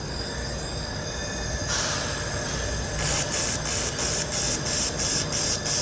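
IPG LightWELD XR handheld fiber laser welder firing in pulse mode, each pulse giving a short high-pitched hiss, about three a second, starting about three seconds in. A steady hiss runs underneath.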